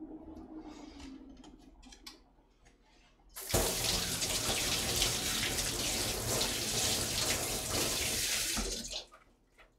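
Kitchen tap turned on, water running hard into the sink and over hands for about five seconds, then shut off sharply. Faint handling noises come before it.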